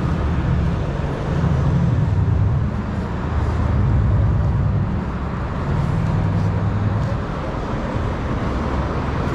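City street traffic noise: a steady low rumble of passing road vehicles that swells and eases a few times.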